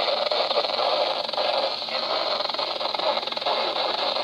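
Steady static hiss from a weather radio receiver.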